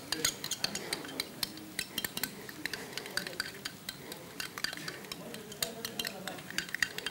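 A utensil stirring a thick, creamy mayonnaise dressing in a glass bowl, with quick, irregular clinks and scrapes against the glass.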